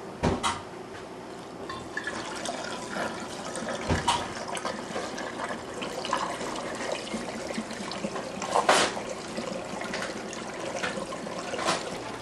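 Wort being poured from a stainless steel brew pot through a plastic strainer and funnel into a glass carboy, splashing and trickling steadily. A few sharp knocks break in, the loudest near the start and about two-thirds of the way in.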